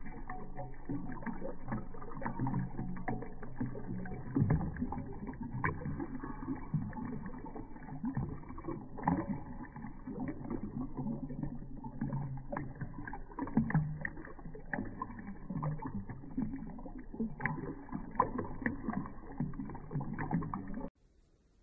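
Golden British Shorthair cat lapping water from a ceramic pet drinking fountain: many quick wet tongue laps and small splashes over the trickle of water from the fountain's spout. The sound cuts off suddenly near the end.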